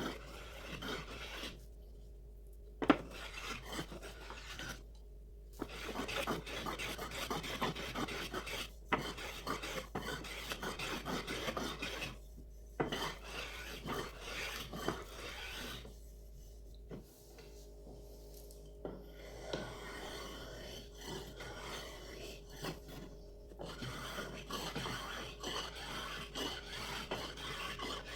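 A hand rasp or file working a sonokeling rosewood saw handle: runs of rough back-and-forth scraping strokes with short pauses between them, and a sharp knock about three seconds in.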